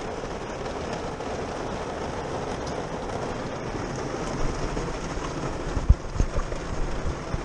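Steady hiss of rain on a truck's roof and windows, heard inside the cab, with a few low knocks from the camera being handled about six seconds in.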